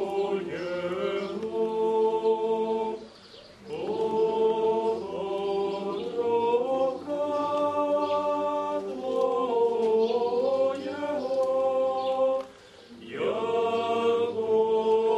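Byzantine-rite liturgical chant sung by a group of voices in long held phrases. The singing breaks briefly twice, about three and a half seconds in and again near the end.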